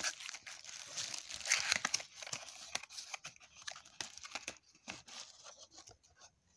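Plastic wrap, paper and cardboard packaging crinkling and rustling as it is handled in an open box, with small clicks and taps. It is densest in the first two seconds, then thins to scattered rustles.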